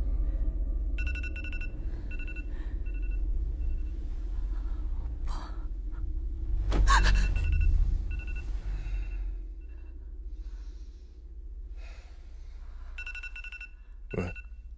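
An electronic ringing tone, groups of short high beeps repeating and pausing, over a steady low rumble. Breathy gasps come in between, the loudest about seven seconds in.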